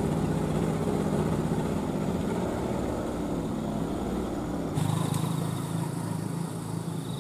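Loaded palm-fruit truck's engine running as it drives off along a dirt road. About two-thirds through, the sound switches abruptly to a motorcycle engine running steadily close by.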